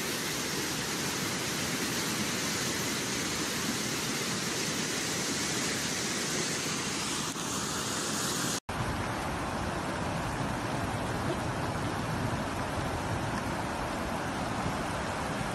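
Fast, muddy floodwater rushing down a wadi in spate: a steady, loud rushing noise. About two-thirds of the way through, a cut brings a second recording of flowing floodwater, a similar steady rush with more low rumble.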